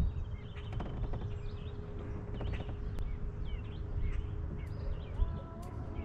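Small birds chirping with short, swooping calls over a steady low rumble. Music comes in about five seconds in.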